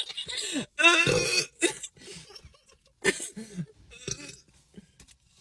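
A person burping several times in quick succession after gulping down cola, the loudest and longest burp about a second in, a second one around three seconds, then a few smaller ones.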